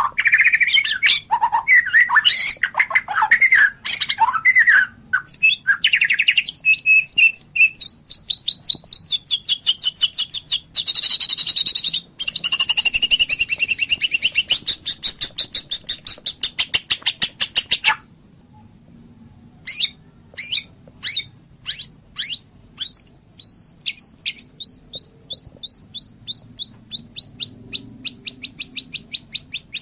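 White-rumped shama singing: varied loud whistled phrases, then a long, very rapid trill lasting about ten seconds. After a brief pause comes a run of quick downward-slurred notes that speeds up.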